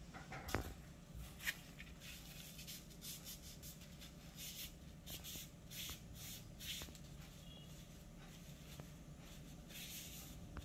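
Faint, irregular rustling with a few light clicks in the first second and a half.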